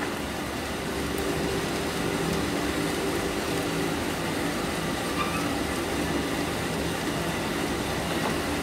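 Small drum coffee roaster running steadily: the drum turning with its fan and motor giving an even mechanical rumble, mid-roast around first crack as the beans develop.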